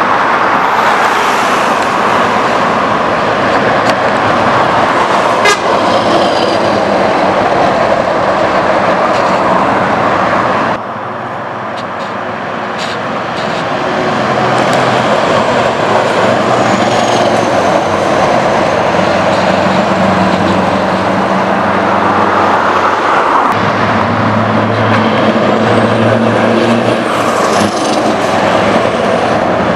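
Scania R500 truck's V8 engine through a straight-pipe exhaust, running loud as the truck drives by. The sound drops off abruptly about eleven seconds in and builds again as a truck approaches, and near the end the engine note steps up and down as it pulls past.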